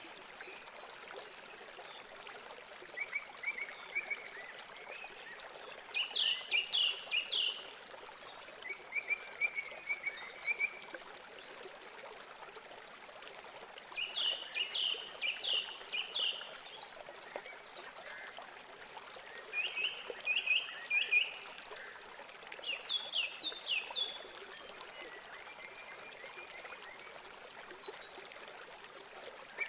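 Nature ambience of a steady trickling stream with chirping calls over it: groups of four or five quick, falling chirps come every few seconds, with softer trills in between.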